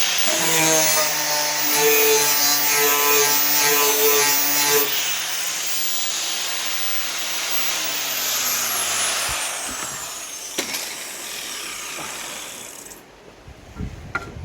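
Angle grinder cleaning back rusty steel on a car door, a harsh grinding noise with a pulsing rhythm over the motor's whine. About eight seconds in the grinder is switched off and its pitch falls as it winds down. A few sharp knocks of handling follow near the end.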